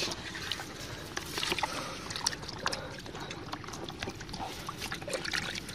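Bare hands squelching and sloshing in wet mud and muddy water, with many small, scattered wet clicks and splashes.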